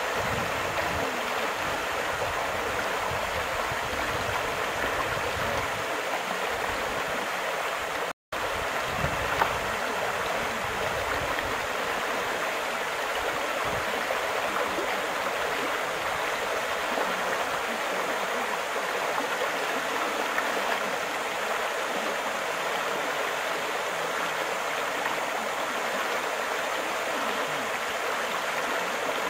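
River water rushing steadily over a shallow rapid. The sound cuts out for a moment about eight seconds in.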